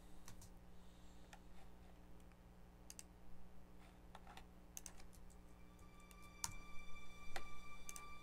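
Scattered computer keyboard and mouse clicks. About five seconds in, an orchestral sample mock-up starts playing back quietly from Logic, with sustained held notes.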